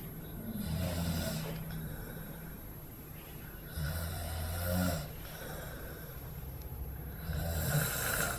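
A man snoring in his sleep: three snores about three and a half seconds apart, each lasting about a second, with quieter breathing between them.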